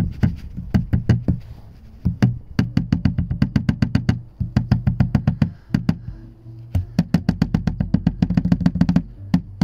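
A loose part on a Tesla Model S rattling as it is knocked by hand: rapid clacks, about seven a second, in four bursts with short pauses. The part has play and knocks against its neighbour, the kind of looseness behind the car's rattles.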